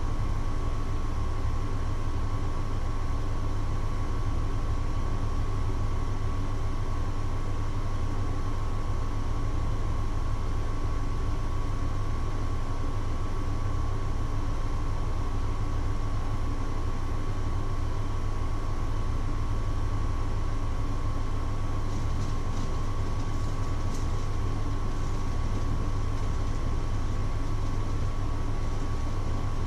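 Steady low electrical hum with a constant thin whine above it, as from a kitchen appliance running, with a few faint ticks near the end.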